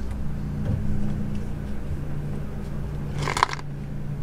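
A steady low hum from a running engine, with a short sharp noise about three and a half seconds in.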